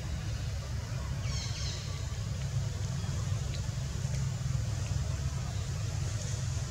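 A steady low rumble of background noise, with a short high chirping call of several quick falling notes about a second and a half in.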